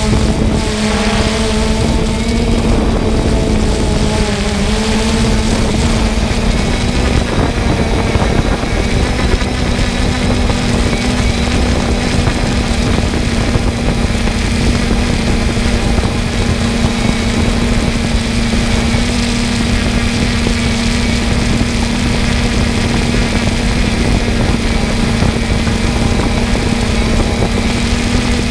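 Multirotor drone's motors and propellers humming while it hovers, heard from its on-board camera: a steady pitched hum over a rushing noise. The pitch wavers a little in the first few seconds, then holds steady.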